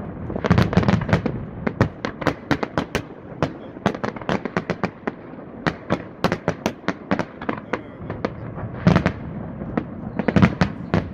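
Fireworks display: a rapid, continuous run of shell bursts and crackles, several a second, with heavier booms in clusters about half a second in, about nine seconds in, and near the end.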